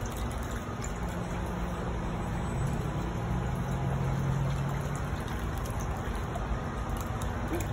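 Steady low outdoor rumble with a faint trickle of water. A low hum swells from about one second in and fades a little past the middle.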